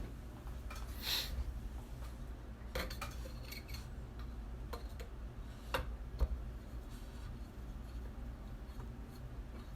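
Light metallic clicks and clinks of a Lyman case trimmer's small metal parts being handled and fitted, about half a dozen scattered strokes, the loudest a little past the middle, over a steady low hum.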